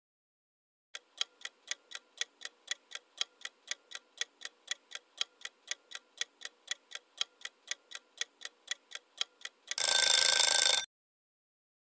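Countdown-timer sound effect: clock ticking about four times a second, ending with a short electronic alarm tone of about a second that signals time is up.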